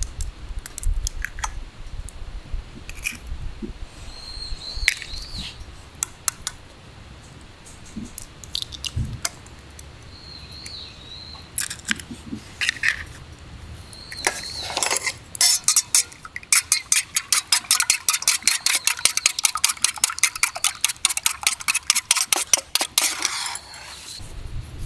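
Scattered light clicks and knocks, then a fast, even run of clicking strokes, about five a second, lasting around eight seconds from a little past the middle. A few short bird chirps come in between.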